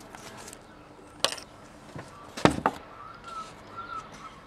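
Two knocks on a slatted wooden garden table, about a second and a quarter apart, the second louder and deeper, as the camcorder is handled and set down on it. From about three seconds in, a faint wavering tone comes and goes in the background.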